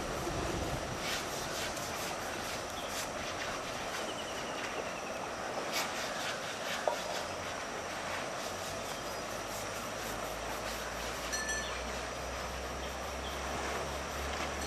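River water rushing over rocks in a steady hiss, with a few short, sharp knocks and a low hum coming in about two-thirds of the way through.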